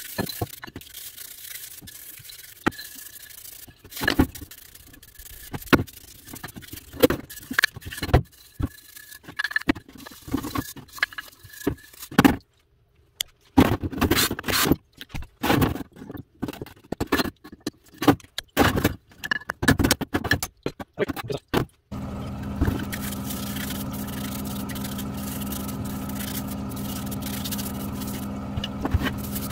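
Irregular scrubbing, scraping and knocks as the greasy metal parts of a rotary hammer are brushed clean. About 22 seconds in, a steady motor hum starts suddenly and keeps running.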